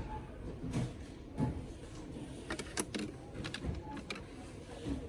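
Shop ambience: a steady low hum with a handful of sharp clicks and soft knocks scattered through it.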